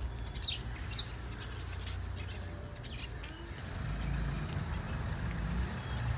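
Outdoor ambience: a few short bird chirps in the first second, over a steady low rumble that grows louder about four seconds in.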